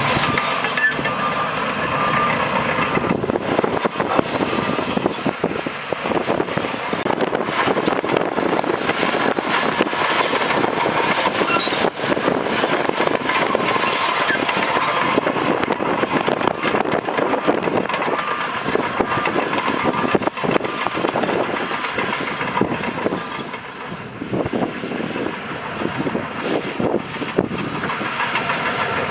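Crawler bulldozer working: its diesel engine running under load while the steel tracks clank and rattle continuously. A repeated beeping sounds at times.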